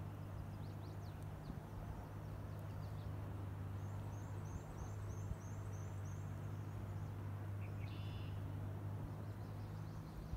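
Woodland ambience with faint birdsong: a few short chirps early, then a quick run of about ten high repeated notes, and a short call near the end. Under it, a steady low hum and a soft wash of noise.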